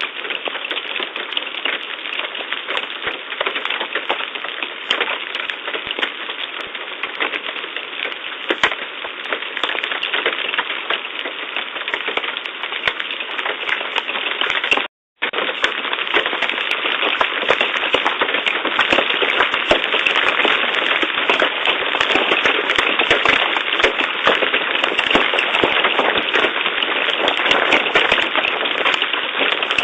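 Large hail, stones over three inches, pelting down with rain: a dense, rapid clatter of hard impacts over a steady rushing hiss, growing heavier in the second half. The sound cuts out for a moment about halfway through.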